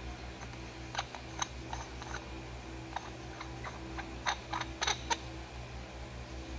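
Light metallic clicks and taps as the black metal tube sections of an EdGI gate-type suppressor are handled and fitted together, a few scattered at first, then a quick cluster of louder clicks a little past the middle. A steady low hum runs underneath.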